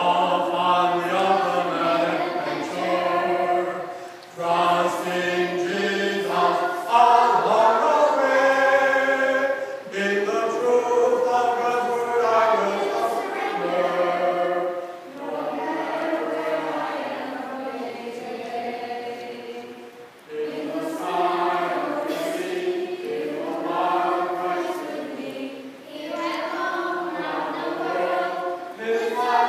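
Children's choir singing a song, in phrases with short breaks every few seconds.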